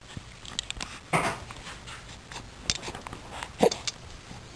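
Young baby making small grunts and breathy noises, with one short pitched coo about three and a half seconds in.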